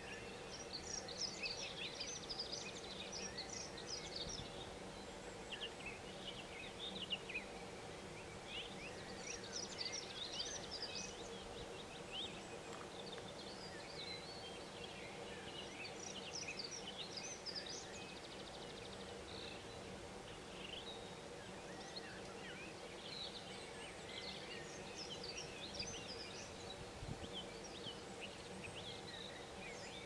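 Wild birds singing in the background, short high chirps and trills coming on and off throughout, over a faint steady hum.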